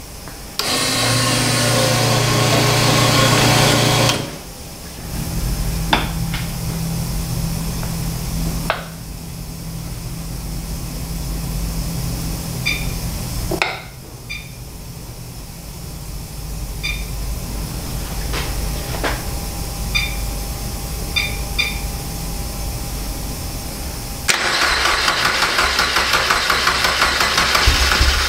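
Honda K24 four-cylinder engine being started: about three and a half seconds of starter cranking, then the engine running steadily at idle, with a few light clicks. It gets louder for the last few seconds.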